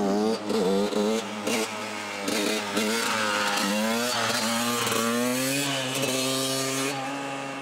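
TM 125cc two-stroke dirt bike engine revving in a few quick blips, then held at steady high revs while the bike is ridden on its back wheel in a wheelie.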